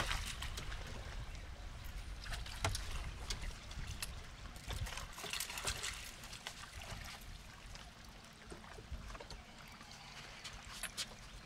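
Water trickling and splashing, with scattered small knocks and clicks over a steady low rumble.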